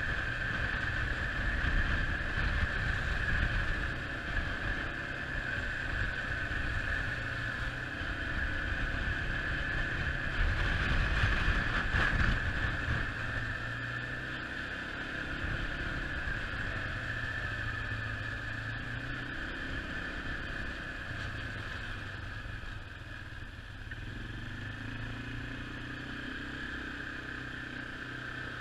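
Quad bike engine running on the move, its revs rising and dropping back in steps, with wind rumbling on the microphone and a steady high whine over it. Louder through the first dozen seconds, then quieter as the ride slows.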